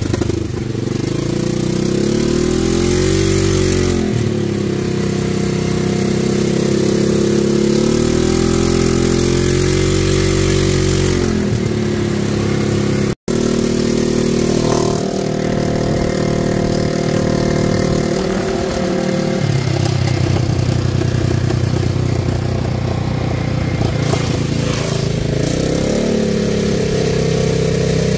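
ATV engine running as the machine is ridden, its pitch rising and falling repeatedly with the throttle. The sound cuts out for an instant a little under halfway through.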